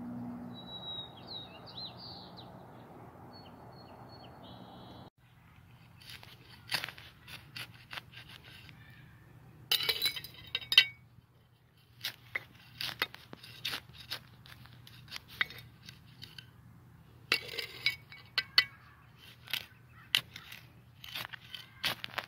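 A few bird chirps over steady outdoor background, then, from about five seconds in, a metal hand trowel scraping and clicking in soil and grit, in irregular runs of sharp clinks, loudest about ten seconds in.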